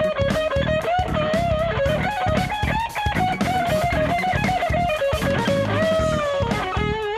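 Electric guitar playing a lead melody with wavering vibrato and bends over a band backing with drums. Near the end a held note slides down.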